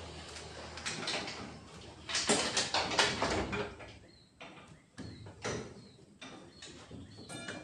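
Irregular metallic clicking and clatter, with a louder run of clanks about two seconds in: a manual chain hoist and its chain at work while a truck diesel engine is lowered into the chassis.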